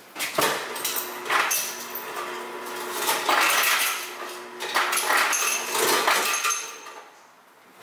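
Groceries being put away at a refrigerator: items clinking and knocking against each other and the shelves, with rustling in between. It goes quieter near the end.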